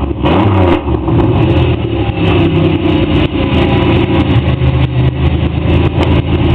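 Straight-piped Pontiac Grand Am 3400 V6 exhaust, loud, with a quick rev about half a second in that falls back to a steady idle.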